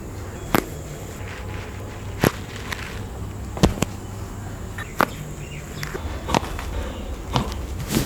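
A series of about six sharp, short cracks, roughly one every second and a half: joints popping during chiropractic spinal and body manipulations.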